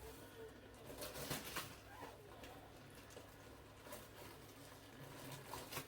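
Faint scattered clicks and taps of small objects being handled, over a low steady hum.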